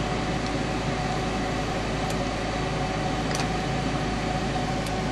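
Steady whirring hum of a fan with a faint steady tone running through it, and a few faint clicks about two, three and a half and five seconds in.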